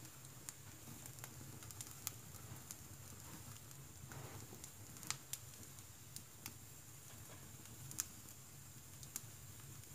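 Wood burning in a wood stove, crackling and popping: scattered sharp pops every half second to a second and a half, over a faint steady low hum.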